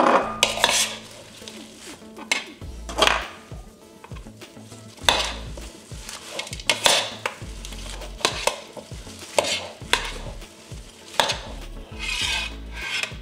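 Salad of lettuce, cucumber and pumpkin seeds being stirred and tossed in a large bowl: about a dozen irregular rustling, scraping strokes.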